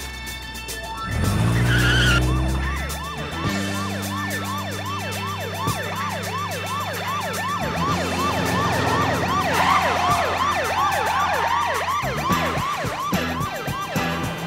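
Police car siren yelping, a fast rising-and-falling wail repeating about twice a second, over car engine noise during a chase, with a tyre screech near the start.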